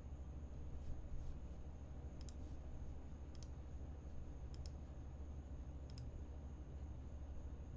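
About six sharp single clicks, spread a second or so apart, over a steady low electrical hum.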